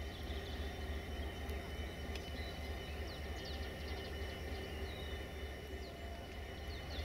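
Steady low drone of a diesel train running, with birds chirping in short high calls over it.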